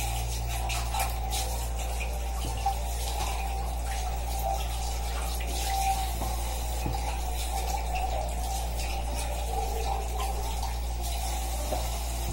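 Kitchen sink tap running steadily while glasses are rinsed under it, with a few light knocks of glass being handled.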